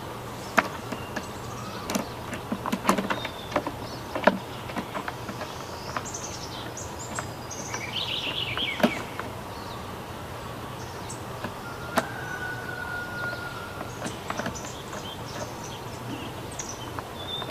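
Metal chainsaw chain links clicking and rattling as they are handled and fitted, several sharp clicks spread out with gaps between them. Birds chirp in the background.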